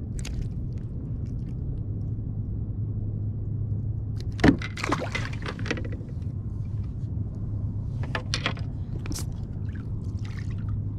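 A small bass released from the hand splashes into the water about four and a half seconds in, with a few softer water sounds later, over a steady low hum.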